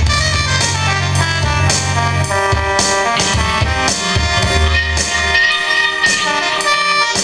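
Electric guitar and Yamaha electronic keyboard playing an instrumental passage of a song over a steady drum beat with a bass line.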